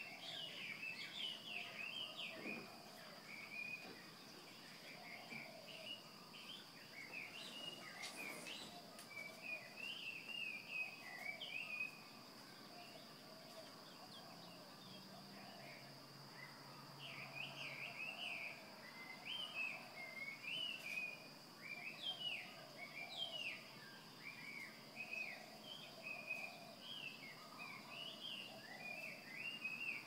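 Dawn chorus: many birds chirping and singing at once in quick rising and falling notes, thinning out briefly about halfway through before picking up again. A steady high-pitched whine runs underneath.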